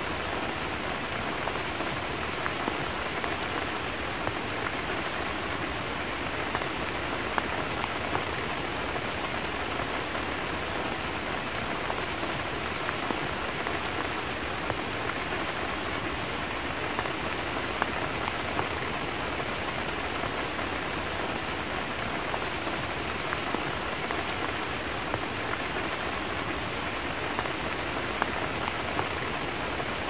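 Steady rain falling, with single drops now and then standing out as sharper ticks.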